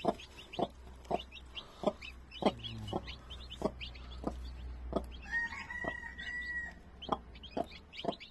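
Broody hen clucking steadily, about two short clucks a second, over her newly hatched chicks, which peep high and thinly between the clucks. One longer, steady call comes about five seconds in.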